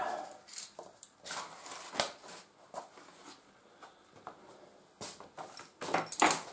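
Handling noises: paper rustling, with scattered light knocks and clicks, a sharp click about two seconds in and a denser run of rustling and knocks near the end.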